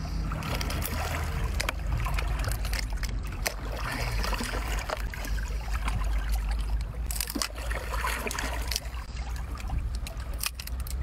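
A cooked lobster's shell being twisted and cracked apart by hand, with wet biting and chewing at the pieces and many small sharp cracks, over a steady low wind rumble on the microphone.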